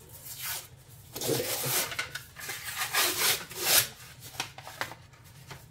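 Paper wrapper being peeled and torn off a can of refrigerated biscuit dough, several scratchy ripping strokes in a row.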